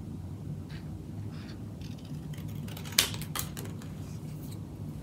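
Small rustles and clicks of craft materials being handled, with one sharp click about three seconds in, over a steady low hum.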